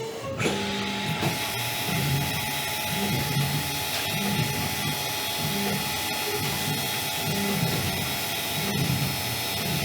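CNC mill spot drilling under its automatic program: the spindle and cut give a steady hiss with a thin high whine, starting about half a second in.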